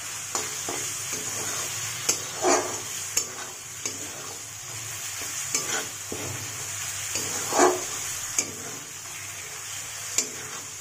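Metal spatula stirring and scraping spiced onion-tomato masala around a metal kadhai on high flame, the paste sizzling steadily in the oil that has separated from it. Irregular scrapes of the spatula against the pan, the louder ones about two and a half, five and a half and seven and a half seconds in.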